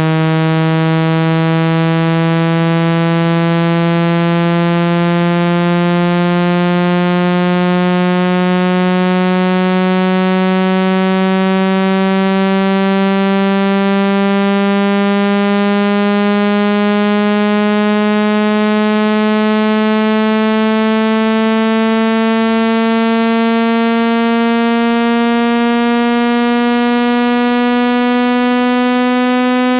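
Speaker-cleaning tone: a steady, buzzy electronic tone full of overtones, slowly rising in pitch. It is played through an iPhone speaker so that the vibration loosens dust and moisture inside it.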